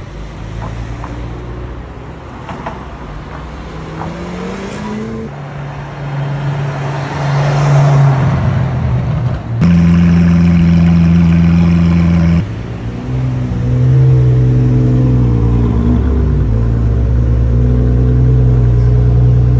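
Supercar engines heard in a string of short clips, with rising revs in the first few seconds. Then a Lamborghini Aventador's V12 runs at a steady, loud idle, and a Ferrari 812 Competizione's V12 runs with small changes in revs.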